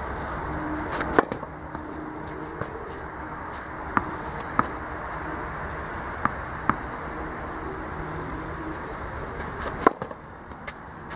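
Tennis serve practice on a clay court: sharp single pops of racket strings hitting the ball and of the ball bouncing, about six in all, the loudest about a second in and near the end, over a steady outdoor background noise.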